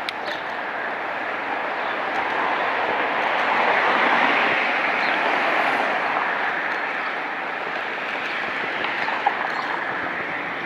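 Rushing road and wind noise recorded from a moving bicycle, swelling for a couple of seconds near the middle. A sharp click at the start and another near the end.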